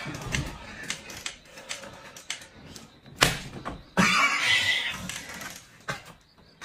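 A sharp smack about three seconds in, followed about a second later by a loud, drawn-out pained cry.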